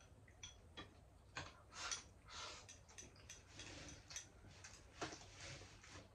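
Faint eating sounds at a table: scattered light clicks of chopsticks against ceramic rice bowls, with a few soft mouth noises of chewing.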